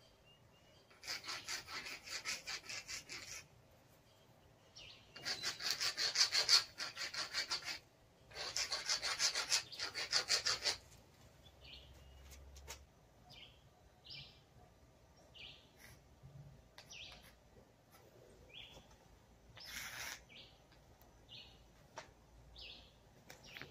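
Fast back-and-forth scraping strokes of a drawing tool rubbing on the mural wall, in three runs of a few seconds each in the first half. After that, a bird gives short chirps, one every second or so.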